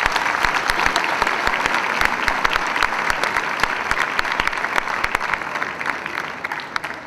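Audience applauding: many hands clapping, steady, then thinning out near the end.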